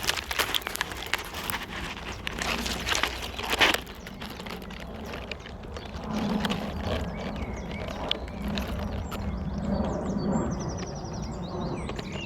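Twigs and leaves rustling and crackling as someone pushes through a bush, with a sharp snap a little under four seconds in. After that it is quieter, with small birds chirping and a short trill near the end.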